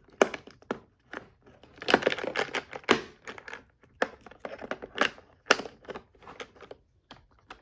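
Plastic latches and small hinged doors of a VTech Latches & Doors Busy Board being worked by hand: a run of irregular sharp clicks and clacks, thickest about two to three seconds in.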